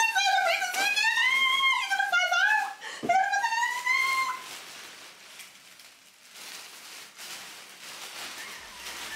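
A woman squealing with excitement: long, high-pitched, wavering cries without words for the first four seconds or so, then only a faint rustle.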